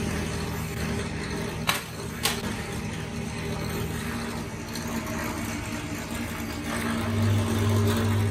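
Bench drill press motor running with a steady hum as the bit bores into a workpiece during pliers making. Two sharp clicks come close together about two seconds in, and the low hum grows louder near the end.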